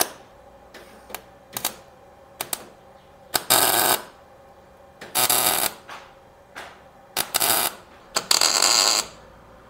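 MIG welder crackling in short, stop-start bursts with sharp pops between, the longest bursts under a second each. It is tack-welding a nut onto a broken-off bolt sunk deep in a Chevrolet 5.3 LS engine's head, so the bolt can be turned out.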